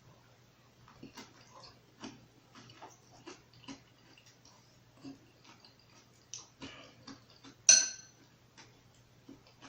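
Close-miked eating sounds: irregular soft clicks and smacks of chewing, with one much louder, briefly ringing clink near the end.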